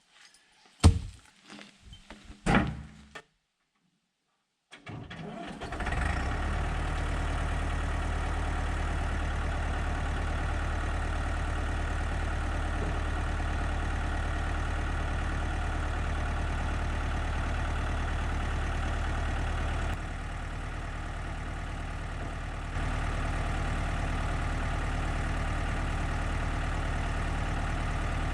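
A few sharp knocks, then the engine of a Massey Ferguson 255 tractor running steadily at an even speed from about five seconds in, a little quieter for a few seconds near the end.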